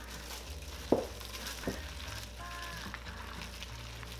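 Wet squelching and crackling of a plastic-gloved hand tossing julienned radish and carrot through thick chili kimchi paste in a stainless steel bowl, with a sharp click about a second in and a softer one shortly after.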